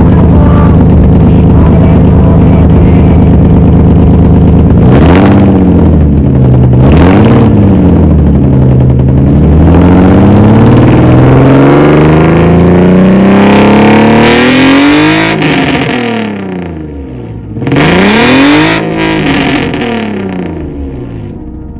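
Infiniti G35 sedan's V6 engine running steadily, then revved: two quick blips, a long climb in pitch, and one more sharp blip before it falls away and fades.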